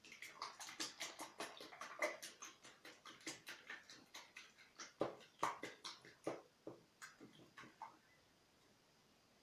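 A whisk beating eggs with salt in a plastic bowl: a quick run of light taps and clicks, about four strokes a second, stopping about eight seconds in.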